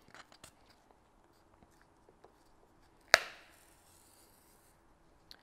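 Faint clicks and rustles of a needle and embroidery floss being worked through holes in a piece of cardboard, with one sharp tap about three seconds in followed by a brief faint hiss as the thread is pulled through.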